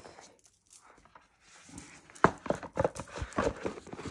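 A quiet moment, then from about two seconds in a string of irregular light knocks and clicks, like small objects being handled and set down on a table.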